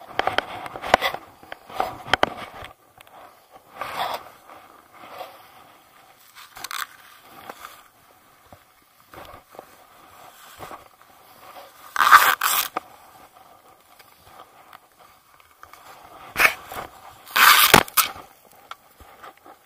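Irregular scraping and rustling of jacket fabric and ski gear rubbing and knocking against the camera, in short bursts with quiet gaps; the loudest comes about twelve seconds in, and two more come near the end.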